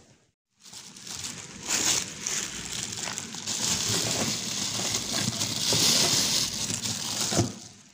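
Plastic bags rustling and crinkling as a hand rummages through bagged food in a freezer, with a knock near the end.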